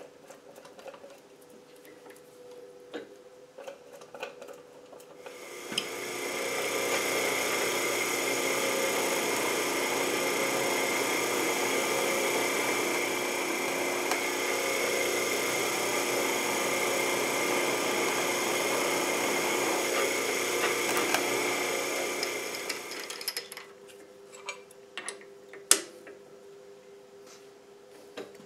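Drill press running with a twist drill boring a 5/16-inch hole through a metal plate. The motor hums quietly, then about five seconds in the bit bites and a loud, steady cutting noise holds for some seventeen seconds before it eases back to the motor's hum, with a few clicks near the end.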